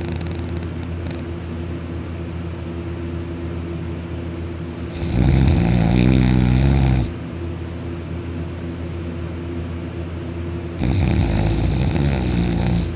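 Heavy open-mouthed snoring: two loud, rattling snores about two seconds long and six seconds apart, over a steady low hum.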